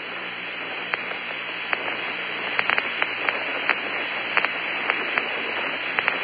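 Steady hiss and static on the Apollo air-to-ground radio voice link, with a faint low hum and scattered sharp crackling clicks that come more often after the first couple of seconds.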